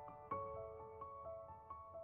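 Soft instrumental background music: a slow, gentle melody of struck notes, a new note every half second or so.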